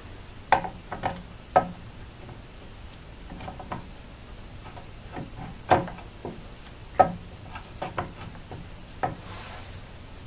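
Irregular light metal clicks and knocks from a Model T's Bosch front-plate distributor housing being pushed and shifted onto its timing gear in a dry fit, the loudest about six and seven seconds in. The gear is knocking against a raised portion of the housing: the modern seal is in the way and the housing will not seat.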